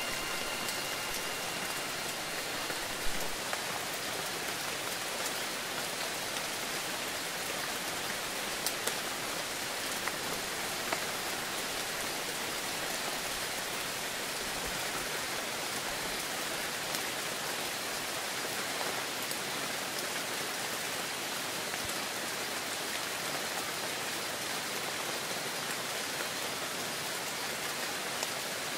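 Heavy rain falling steadily, a dense even hiss with a few sharper drop ticks now and then. A wind chime's last ringing notes fade out in the first couple of seconds.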